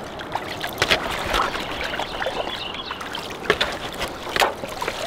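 Shallow water sloshing and splashing around wading legs and a hand reaching into it, with a few sharper splashes about one, three and a half and four and a half seconds in.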